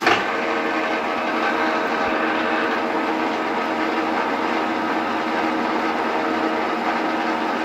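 Manual milling machine's spindle switched on, starting abruptly and then running steadily with a hum of several fixed tones, an edge finder spinning in the chuck.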